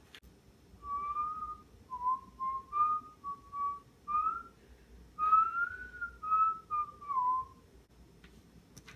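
A person whistling a meandering tune, a string of short notes that slide up and down in pitch and trail off with a falling note near the end.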